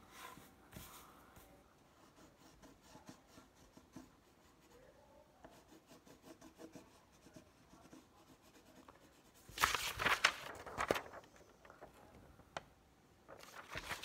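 Pencil drawing on paper: faint scratching strokes, then a louder burst of scratching and rubbing about ten seconds in. Near the end the sheet of paper rustles as it is picked up.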